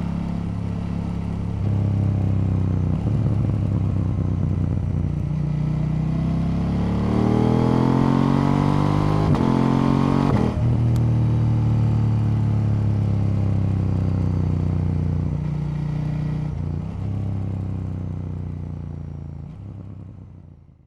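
KTM 890 Duke L's parallel-twin engine heard while riding: a steady engine note, then revs climbing strongly from about seven seconds in, dropping off sharply about three seconds later, then running steady again before fading away near the end.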